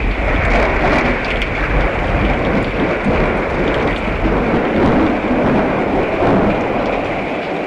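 Heavy rain falling steadily during a thunderstorm, with a roll of thunder rumbling and dying away in the first couple of seconds. A few sharp drop ticks stand out, and the rain eases slightly near the end.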